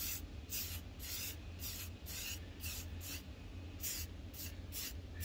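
Aerosol spray can of crystal-clear gloss coating hissing in short, quick bursts, about two or three a second, as clear coat is dusted onto a plastic solar-light cover.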